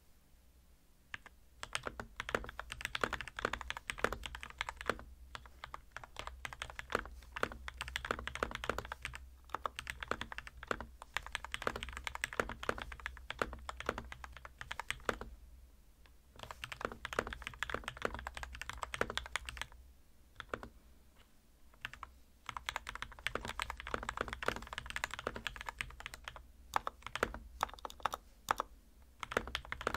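Typing on a custom RK61 mechanical keyboard with Gateron Milky Yellow linear switches lubed with Krytox 205g0 and tape-modded: fast runs of keystrokes, starting about a second in and broken by a few short pauses.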